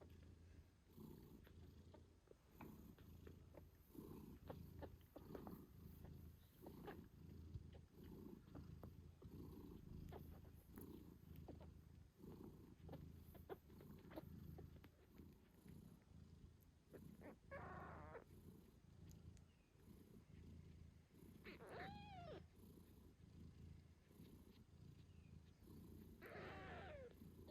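British Shorthair mother cat purring continuously, with three short high mews from her 8-day-old kittens, the last near the end.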